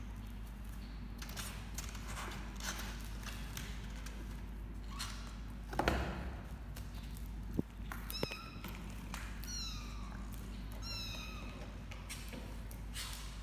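Kittens about a month old mewing, a run of short high-pitched calls in the second half, over the scuffling and small knocks of their play-wrestling, with a single louder thump just before the mews.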